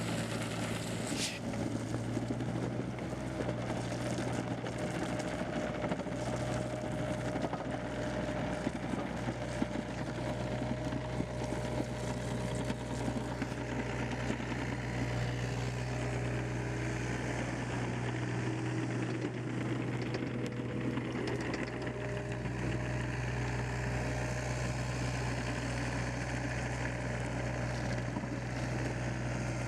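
Yanmar diesel engine of a Case CX36B mini excavator running steadily at an even speed.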